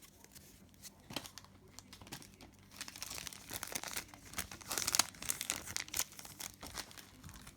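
Foil wrapper of a hockey card pack crinkling and tearing as it is opened by hand, a few scattered crackles at first, then dense crinkling from about three seconds in.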